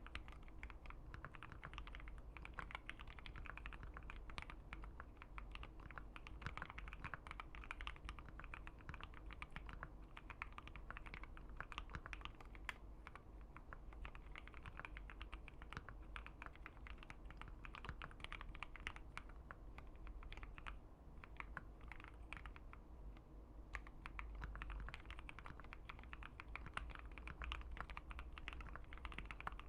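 Typing on a Keychron Q1 mechanical keyboard with an FR4 plate and Gateron Milky Yellow linear switches: a fast, continuous patter of keystroke clacks that eases off briefly about two-thirds of the way through.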